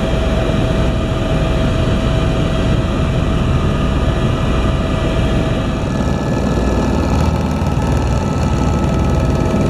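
Helicopter in steady flight, heard from inside the cabin: a constant engine and rotor drone with a few steady whining tones above it.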